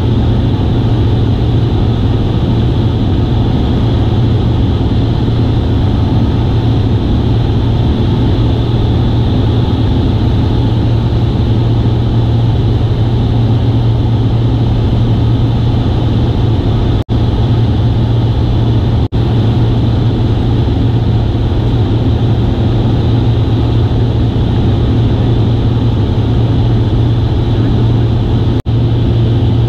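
Single-engine light aircraft in cruise flight, heard from inside the cockpit: the piston engine and propeller make a loud, steady drone with a strong low hum. The sound cuts out for an instant three times, about halfway through and near the end.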